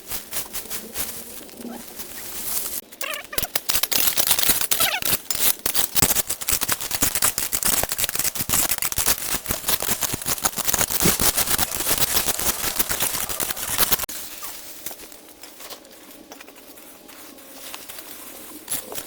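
A dense, rapid run of sharp clicks and crackles, starting about three seconds in and stopping suddenly about eleven seconds later; pigeons cooing softly before and after it.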